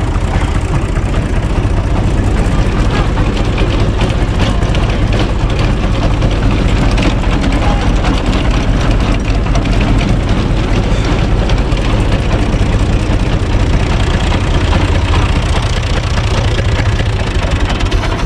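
Universal 445 DT tractor's diesel engine running steadily, with a dense, rapid rattle on top of a deep rumble.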